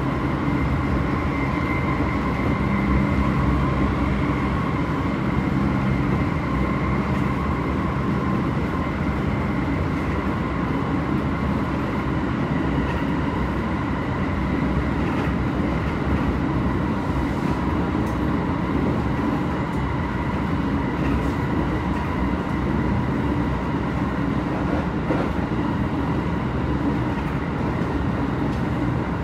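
Hokuso Railway 7500 series electric train running at speed, heard from inside the passenger car: a steady rumble of wheels on rail with a steady whine from its Toyo IGBT-VVVF traction equipment, which weakens about a third of the way through.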